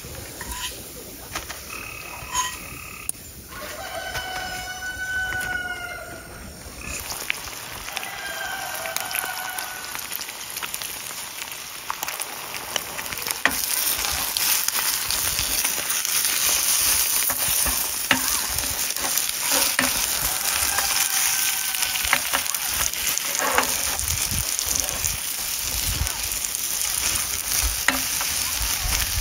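Eggs frying in a nonstick pan on a camp stove. The sizzle sets in loudly about halfway through and holds steady, with the spatula scraping and tapping the pan as the eggs are scrambled. Before it, a few short animal calls sound over a quiet background.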